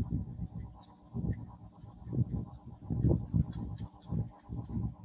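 A steady, fast-pulsing high-pitched trill of a cricket, with irregular low scuffs from a marker writing on a wall chart.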